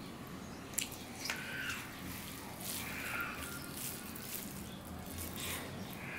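Hand mixing wet rice and dal on a steel plate: wet squelching and squishing, with a few sharp clicks of fingers against the metal.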